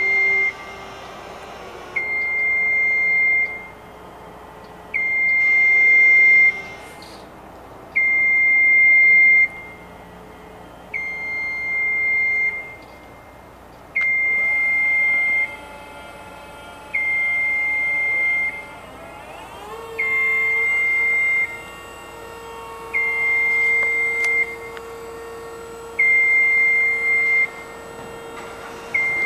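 Genie Z-40/23N RJ battery-electric boom lift's warning beeper sounding a steady high beep of about a second and a half, repeating every three seconds. About halfway through, its electric hydraulic pump motor starts up with a whine that rises in pitch and then holds steady as the boom is raised.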